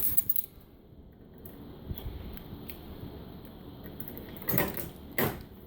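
Key turning in a tool box lock with a few small clicks, then two short, louder mechanical noises about four and a half and five seconds in as the box is opened.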